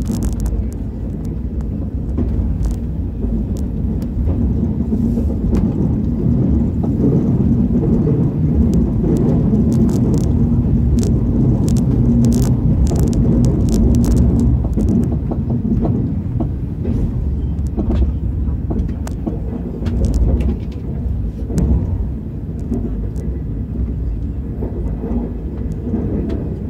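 KTX high-speed train running on the track, heard from inside the passenger cabin: a steady low rumble with scattered light clicks, a little louder through the middle.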